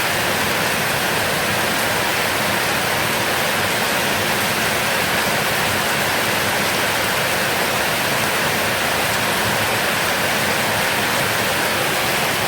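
Heavy rain falling in a steady, even hiss with no breaks or thunder.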